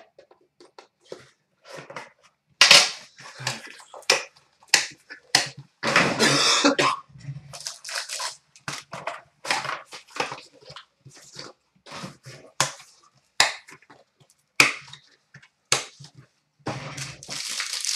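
A cardboard trading-card box being handled and opened: a string of light clicks, taps and knocks of cardboard on a glass counter. There is a longer rustle of about a second around six seconds in.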